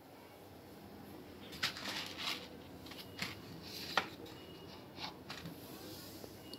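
A paper cup-noodle bowl being handled on a kitchen counter: a few soft rustles and light taps, the sharpest about four seconds in, over a faint steady background.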